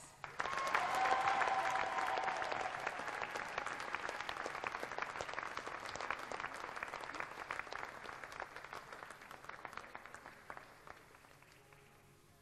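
Audience applause, many people clapping: it starts at full strength right after an announcement, with a brief cheer about a second in, and gradually fades away over about ten seconds.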